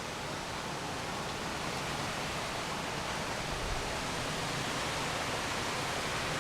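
Wind blowing steadily through the leaves of a flowering acacia tree, making an even, continuous rustling hiss.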